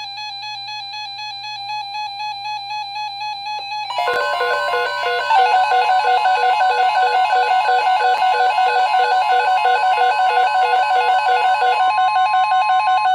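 A music-like electronic tone, then about four seconds in a steady 1050 Hz NOAA Weather Radio warning alarm tone joins several pulsing tones. This is the alert signal that comes before a severe thunderstorm watch broadcast, and it cuts off just before the announcement starts.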